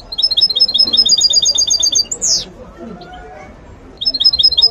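Goldfinch mule, a European goldfinch × canary hybrid, singing a rapid trill of bright repeated notes, about ten a second, that ends in one loud down-slurred whistle. After a short pause the same trilled phrase starts again near the end.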